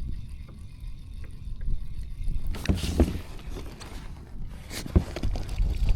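Knocks and handling noises in a kayak over a steady low rumble, with a few sharp knocks in the second half.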